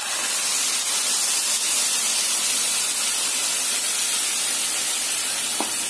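Milk poured onto grated carrots frying in hot ghee in a kadhai, setting off a loud, steady sizzling hiss that starts suddenly as the milk hits the pan.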